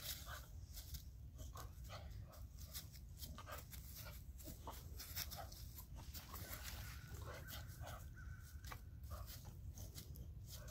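Boxer dog leaping and landing again and again on dry fallen leaves, its paws crunching and rustling them in many short crackles, with a few brief high whines from the dog.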